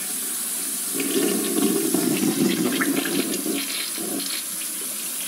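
Toilet flushing: water rushing and swirling down the bowl, swelling about a second in and easing off near the end.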